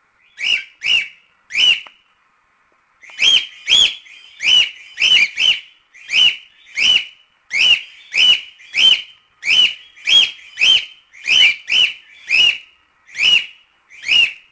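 Cockatiel calling in a long series of short, clear whistled chirps, each rising then falling, about one and a half a second, with one brief pause near the start.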